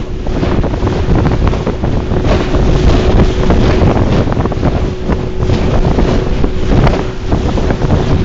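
Wind buffeting the microphone on a boat at sea, with a steady low hum under it that fades out near the end.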